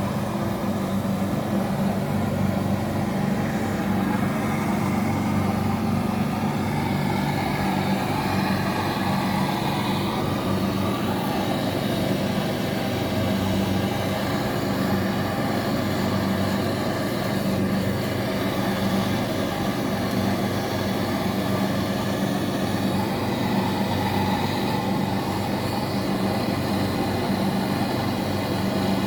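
Steady drone of running machinery with a low, even hum underneath.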